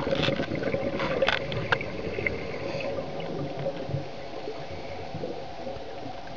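Underwater sound picked up through a dive camera: a steady low rushing and bubbling with a faint steady hum, and a few sharp clicks in the first two seconds.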